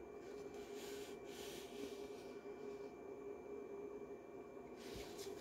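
Quiet room tone with a steady electrical hum, and faint soft rustles of a paper picture book being handled and shifted in the hands.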